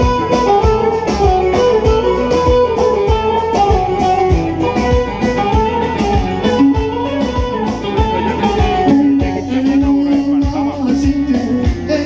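Amplified live folk dance music, an instrumental passage: a plucked string instrument plays the melody over keyboard and a steady beat.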